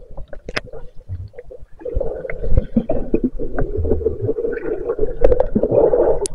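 Muffled underwater sound as swimmers dive: rumbling and bubbling, with a steady droning tone from about two seconds in until near the end.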